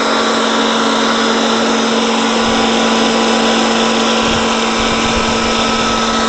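Belsaw 9142 wood planer running free with no board in it, a steady hum and whine that does not change.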